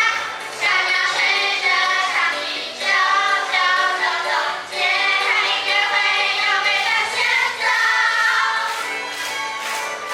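A cheerful song sung by several high voices together over backing music.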